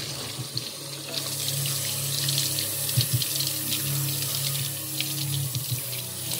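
Kitchen tap running into a stainless steel sink, the water splashing over things being rinsed under the stream, with a few light knocks.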